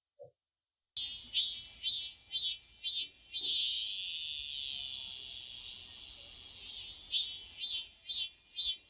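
Cicada singing: a loud, high-pitched buzz that starts about a second in, pulsing about twice a second, settling into a steady drone for a few seconds, then pulsing again near the end.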